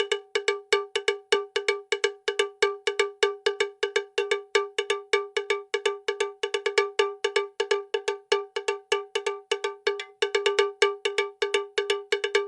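Rapid, even strikes of a single bell-like metallic tone, about five to six a second, repeated throughout.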